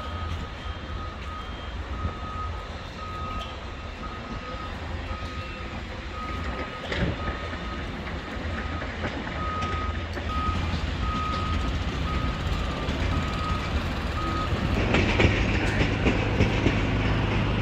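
A vehicle's reversing alarm beeping steadily, one high single-pitched beep about once a second, over a low rumble. The beeping stops near the end as a louder rushing noise rises.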